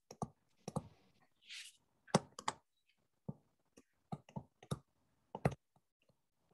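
Stylus tapping and clicking against a tablet screen during handwriting: about a dozen sharp, faint clicks at uneven intervals, with one short breathy hiss about a second and a half in.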